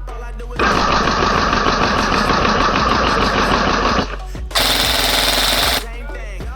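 Airsoft gun firing on full auto: a long rattling burst of about three and a half seconds, then a shorter burst of about a second, over background music.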